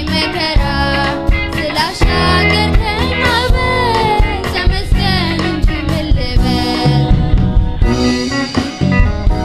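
Live worship band: voices singing a worship song over guitar, bass and drums.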